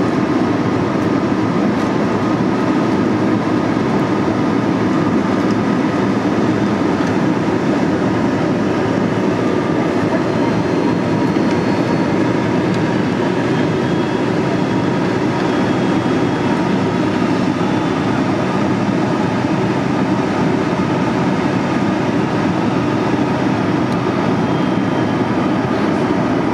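Airliner cabin noise heard from a window seat during the approach: the steady, even rush of the jet engines and the airflow along the fuselage, with no change in level.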